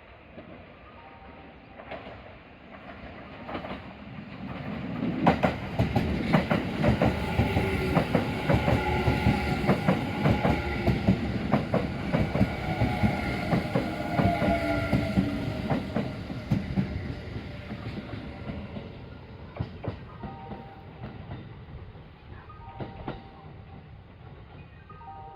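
Kintetsu electric train passing close by, its wheels clacking over rail joints in quick succession along with a steady whine. It builds over a few seconds, runs loudest for about ten seconds, then fades away.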